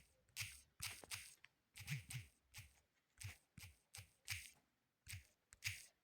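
Fingers tapping out text on a smartphone's touchscreen keyboard: about a dozen soft, separate taps at an uneven typing pace.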